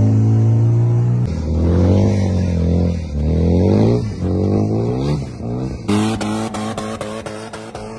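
DC Avanti sports car's engine, droning steadily and then revving up and down several times as the car is thrown into a drift on sand. Near the end, background music with a regular beat comes in.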